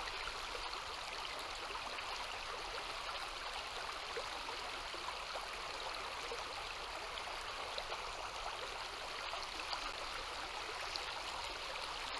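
River water flowing steadily, an even hiss with no change through the stretch.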